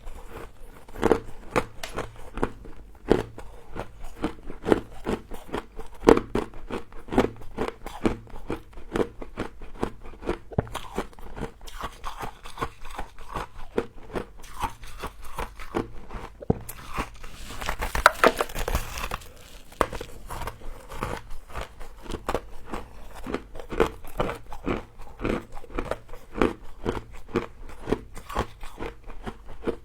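Close-up crunching and chewing of frozen humidifier frost: a quick, irregular run of crisp bites and crackles, with a denser rustling, crumbling stretch about halfway through.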